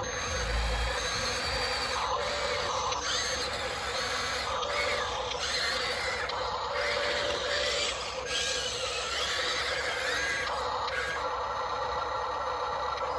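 Small electric motors of a Huina 1594 RC excavator whining in short stretches that start and stop every second or so, the pitch shifting from one stretch to the next, over a steady hum.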